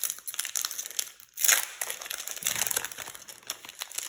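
Foil wrapper of a trading card booster pack crinkling as it is torn open and handled, with the loudest crackle about a second and a half in.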